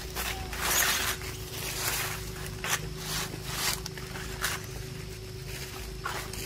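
About six short rustling, scraping noises a second or so apart, the loudest about a second in, over a steady low hum and a faint constant tone.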